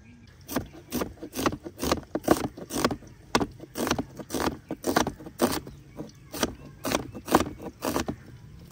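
Onions being sliced with a knife on a cutting board, in a steady rhythm of about two cuts a second.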